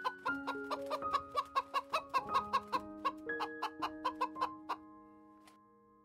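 Hen clucking in a quick run of short clucks, about four a second, fading out near the end, over soft piano music.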